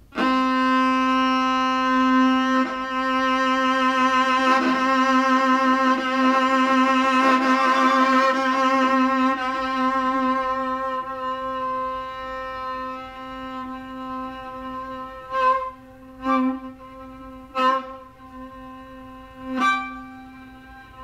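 Bowed strings of a string quartet sounding one long sustained note, near middle C. It enters suddenly, wavers with vibrato through the middle and then softens. Near the end, four short sharp accents cut in over it.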